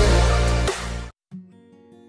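Background music only: a loud electronic intro jingle that cuts off about a second in, followed after a brief pause by a soft acoustic guitar tune.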